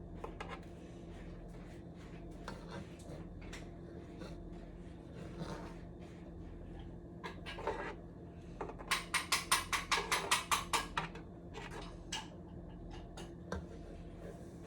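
Cookware and utensils clinking and knocking against a pot while the macaroni cooks, with scattered single clicks and a quick run of about a dozen clinks a few seconds past the middle.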